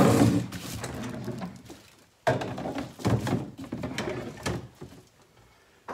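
A plastic recycling bin being handled and set into a wire pull-out rack under a sink. A rush of plastic scraping and rubbing at the start fades out, then comes a run of light knocks and clicks as the bin seats in the frame.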